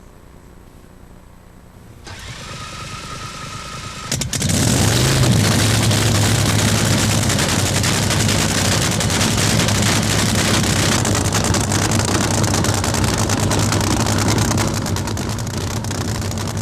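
Drag boat engine firing up about four seconds in, then running loud and steady at idle with a deep even note, easing off near the end.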